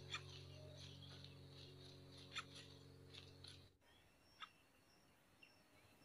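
Near silence, with a few faint short ticks and a faint steady hum that cuts off a little under four seconds in.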